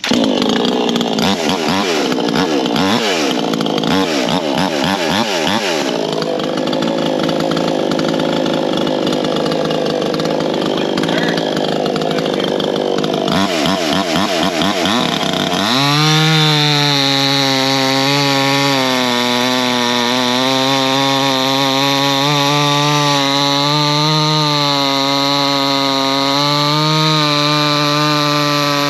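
Proyama 68cc two-stroke chainsaw with a 24-inch bar and full chisel chain cutting through a poplar log. For the first half the engine's pitch rises and falls as it revs and loads in the cut. From about sixteen seconds in it holds a steady high-revving note with slight dips.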